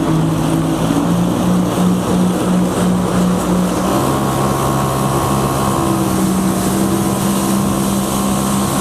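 Jet ski engine running steadily at speed on the water, with a higher whine joining about four seconds in.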